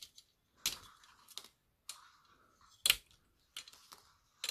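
Small hard-plastic model-kit parts being twisted and snapped off their runner by hand: several short, sharp plastic clicks, the loudest about three seconds in.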